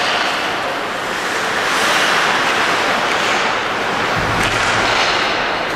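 Hockey arena crowd cheering, a loud steady roar that swells and eases, with a low rumble joining about four seconds in.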